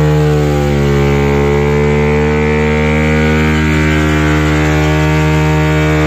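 Yamaha R15 V3's 155 cc single-cylinder engine held at high revs in a burnout, the rear tyre spinning in place and smoking. The engine note is loud and steady, wavering only slightly in pitch.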